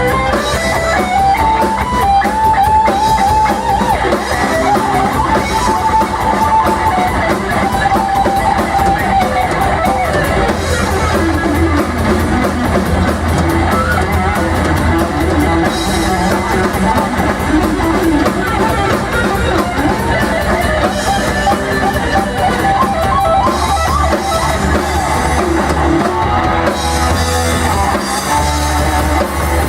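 Rock band playing: a lead electric guitar carries a melody over drums and bass, with no singing.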